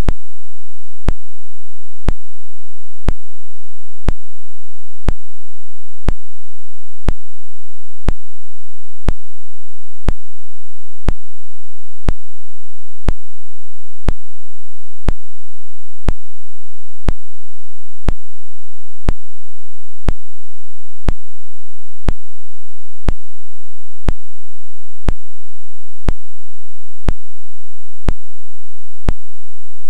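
Sharp clicks at an exact one-second beat, strongest in the bass, over a faint steady hiss and hum. This is a digital glitch in the camera's audio track, not a sound in the room.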